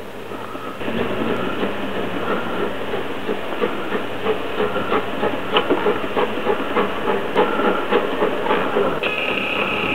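Two-foot narrow gauge Forney steam locomotive approaching slowly: steam hissing, with an uneven run of clicks and knocks from the running gear and track that is thickest from about four seconds in. A steady high tone comes in near the end.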